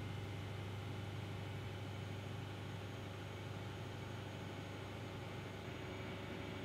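Steady low mechanical hum with a faint even hiss, unchanging throughout.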